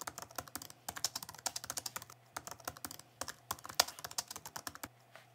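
Keyboard typing sound effect: rapid, irregular key clicks with a few short pauses.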